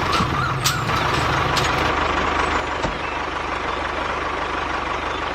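A vehicle engine running steadily under a dense hiss, its low hum fading after about two seconds.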